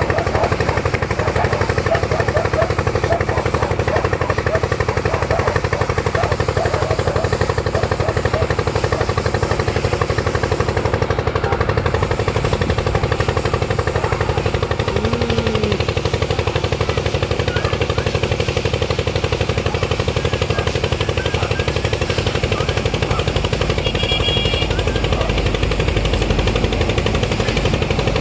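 An engine running steadily with a fast, even knocking pulse, its level unchanging throughout.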